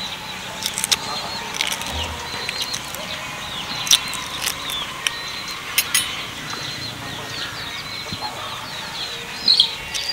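Sharp clicks and small crackles of a steamed duck eggshell being peeled by hand, with a spoon knocking against the egg near the end. Birds chirp in the background throughout.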